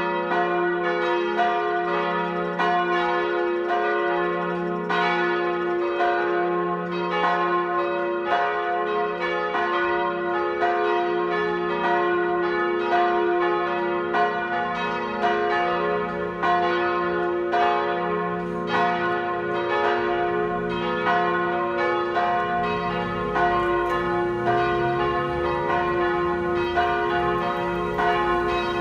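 The Groenestraatkerk's church bells rung all together in full peal (plenum): dense, overlapping strikes in an irregular, unbroken clangour over a steady ringing hum.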